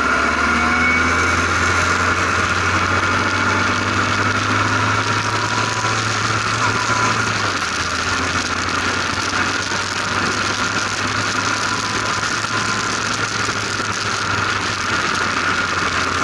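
Formula RP1 single-seater race car's engine running at fairly steady revs on track, heard from the open cockpit over a steady rushing noise; the low engine note shifts about seven and a half seconds in.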